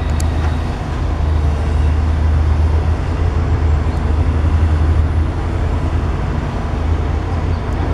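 Steady low rumble of engines and road traffic in a city street, with no distinct impacts.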